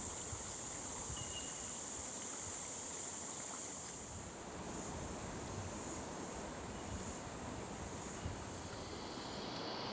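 Forest ambience: a steady high-pitched hiss over a low rushing noise, with two brief, faint single 'tink' notes of bell miners (bellbirds), about a second in and again near the end.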